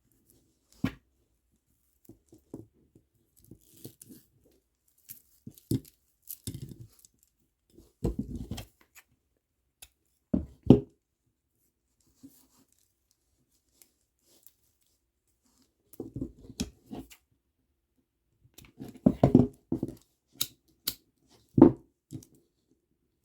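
Plastic pony beads clicking and rattling against each other as they are handled and restrung on bracelet string, with short rustles. The clicks come irregularly in clusters, busiest a third of the way in and again near the end.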